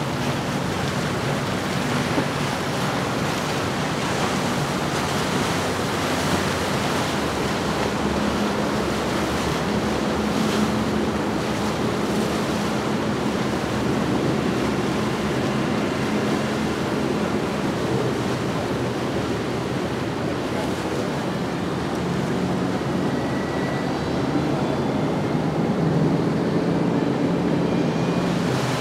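Diesel outboard motors running as center-console boats cruise past, first a Cox CXO300 and then an OXE, with their wakes rushing and wind on the microphone. The sound is a steady hum under a constant water wash.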